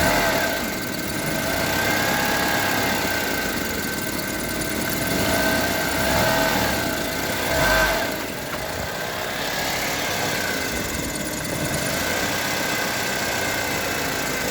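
Honda HR-V's CVT humming with the car in Drive while the engine runs under light throttle, the engine note rising and falling a few times beneath a steady whining tone. The owner takes the hum for worn bearings in the CVT.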